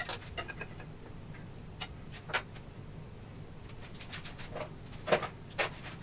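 Scattered light clicks and knocks of hand tools being handled and set down on a wooden workbench, the loudest knock about five seconds in.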